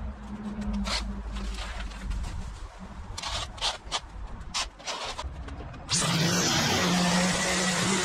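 A rake scrapes in short irregular strokes through cut grass clippings. About six seconds in, a leaf blower starts running loudly and steadily, a low drone under a rushing hiss.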